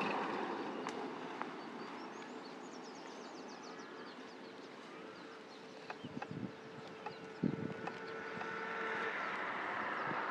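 Outdoor ambience: a steady hiss that dies down toward the middle and swells again near the end. A faint steady hum runs for several seconds, with a few soft knocks a little past the middle.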